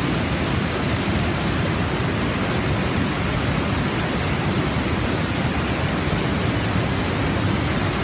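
Steady, deep rush of a waterfall in heavy flow, its water pouring over the drop and churning through the foaming cascades below.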